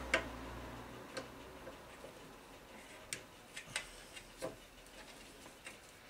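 Faint, irregular light clicks and taps from hand tools working on a washing machine's drum motor, taking out a carbon brush holder's screws.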